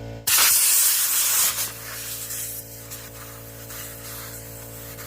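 Compressed air hissing out of a pressurized tire as a new valve stem is forced into the rim with a valve stem tool. A loud blast of about a second and a half comes first, then a weaker hiss carries on.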